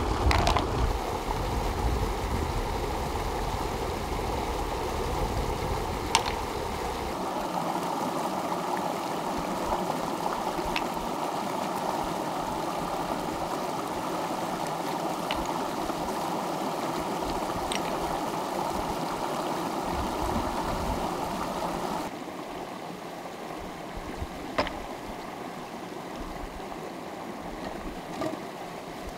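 Mountain stream running over rocks, a steady rush of water. Now and then a single sharp click, as flat stones are knocked together while being washed and stacked.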